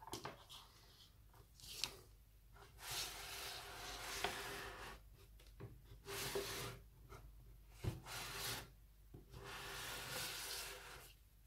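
Handling noise: hands rubbing and sliding over a homemade speaker box and its cables on a tabletop, in several short scuffing strokes with a few light knocks.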